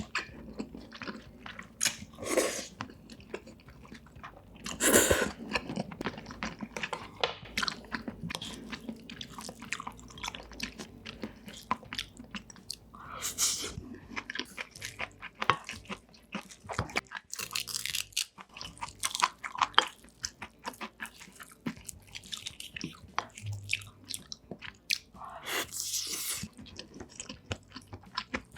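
Close-miked chewing and biting of food: many small wet mouth clicks with crunchy bites, and a few louder, longer mouth noises now and then.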